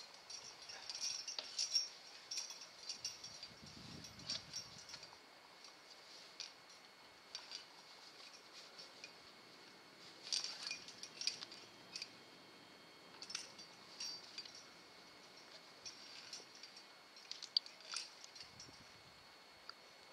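Metal climbing gear, carabiners and quickdraws, clinking and jingling in short irregular bursts as the climber moves up the rock.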